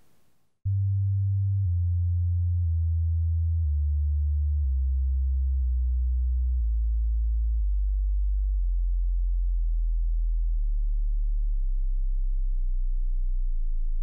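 A deep, steady pure tone, like a test tone, starts about half a second in and steps down in pitch about once a second, then holds at its lowest pitch from about halfway through.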